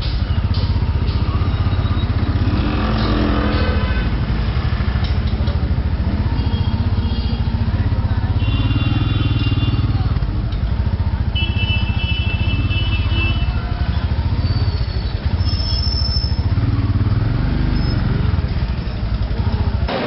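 Royal Enfield Himalayan's single-cylinder engine running at low speed in stop-and-go street traffic. Other vehicles' horns honk around it several times, longest about eight and eleven seconds in.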